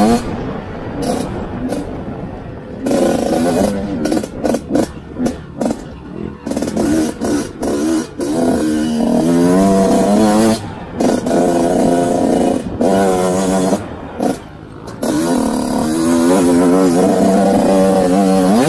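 Motocross dirt bike engine heard from on board, revving up and easing off over and over as the rider works the throttle along the track, its pitch rising and falling with many brief drops where the throttle is chopped.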